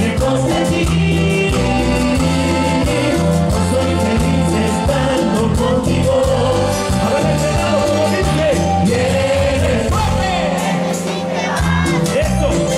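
Live band music played loud through a stage PA: a man singing over a steady drum-kit and bass beat with held instrumental tones.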